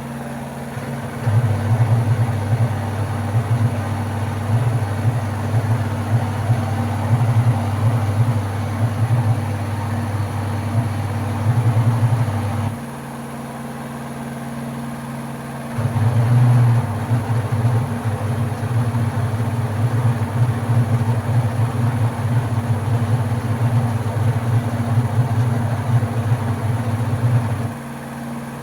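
LG washing machine motor running with a loud, steady low hum that sounds like a racing engine. It runs for about eleven seconds, stops for about three, then runs again for about twelve, over a quieter constant hum.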